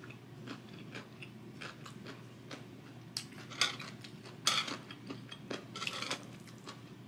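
Close-up chewing and soft mouth clicks of someone eating noodles. From about three seconds in come louder sharp clicks and scrapes, as metal chopsticks knock against a metal sheet tray while picking up noodles.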